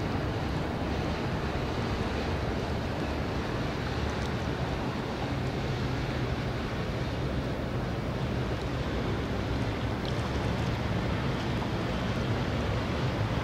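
Distant train running along the far bank, a steady low rumble that does not change, mixed with wind on the microphone and the wash of the river.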